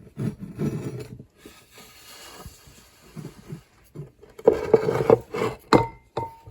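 Household objects on a cluttered surface being shifted, rubbed and scraped as someone reaches in to set a small fallen statue upright. About four and a half seconds in come a quick run of knocks and clinks, ending in a short ring.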